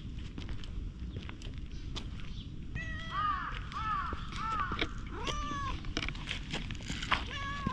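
A crow cawing: a quick run of about five caws starting about three seconds in, each one an arched note that rises and falls, the last a little longer, then a single caw near the end.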